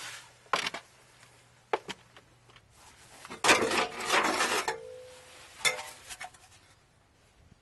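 Metal exhaust parts being handled: a few sharp clinks, then a louder rattling scrape of about a second and a half starting some three and a half seconds in, ending in a brief ring, and a cluster of clinks around six seconds.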